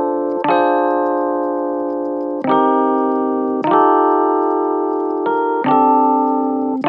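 Background music: slow piano-like keyboard chords, each struck and held so that it slowly fades before the next, with a new chord about every one to two seconds.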